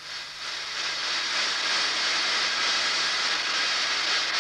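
Train sound effect as the carriages roll past: a steady rushing hiss that swells over the first second and then holds.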